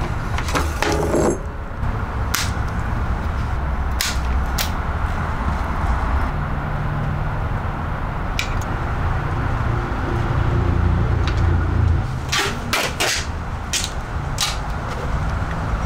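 Sharp clicks and knocks from a mountain bike's front wheel and fork being handled in a work stand, over a steady low rumble. Near the end there is a quick run of sharp rips as tape is pulled off a roll.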